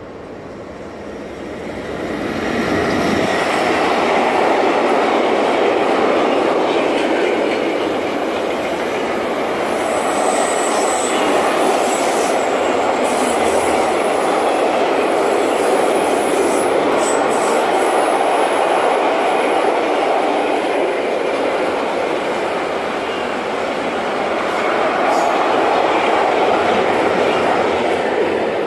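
Freight train of double-deck car-carrier wagons, hauled by an electric locomotive, passing close by: a steady rolling rumble of wheels on rail that builds over the first few seconds and then holds, with faint high wheel squeals in the middle.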